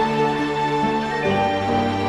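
Instrumental introduction of a slow, tender song: sustained chords with a bass line that shifts about a second in.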